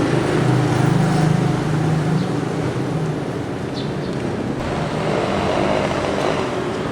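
Street traffic: a motor vehicle's engine hums close by for the first three seconds or so, then fades, leaving general traffic noise.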